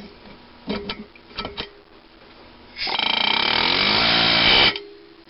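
Pneumatic air hammer driving a thin-wall bronze valve guide liner into a cast-iron engine cylinder head, in one burst of rapid hammering about two seconds long that stops abruptly. A few light metal clicks come before it.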